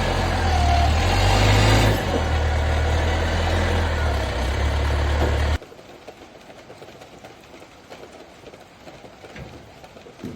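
Forklift engine idling, cutting off suddenly a little past halfway, after which only a faint patter of rain is left.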